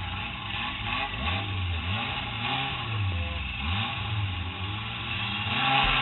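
Stock car engine heard from inside the cabin, revving up and down several times in quick rises and falls, then running more steadily near the end.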